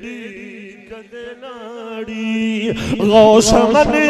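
A man singing a Punjabi devotional verse (manqabat), holding a long note with a wavering, ornamented melody. It grows much louder about two-thirds of the way in.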